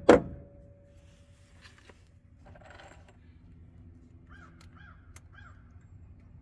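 A sharp knock with a short metallic ring right at the start, then quiet, with three faint high chirps about four to five seconds in.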